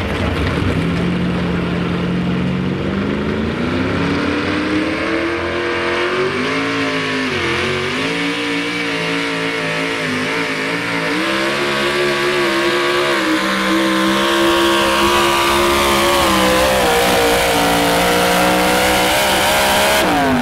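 Supercharged engine of a modified 4x4 pulling truck at full throttle, dragging the weight sled. The revs climb over the first few seconds, dip briefly, hold high and rise again, then fall away right at the end as the throttle comes off.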